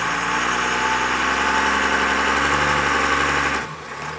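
Cummins diesel engine of a 1996 Dodge Ram 2500, run hard in four-wheel low while straining against a chain on a tree being pulled out. The revs climb slowly, then drop off suddenly near the end as the throttle is let off.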